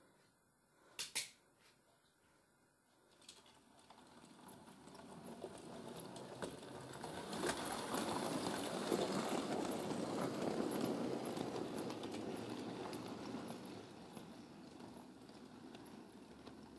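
Model railway tank locomotive with a short goods train running past on the track: the rumble of its motor and wheels grows over several seconds, is loudest as it passes close, then fades as it runs away. Two sharp clicks about a second in.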